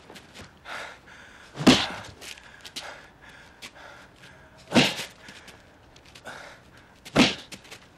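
Three heavy punch impacts from a film fight soundtrack, a fist landing hard on a body, spaced about two and a half to three seconds apart.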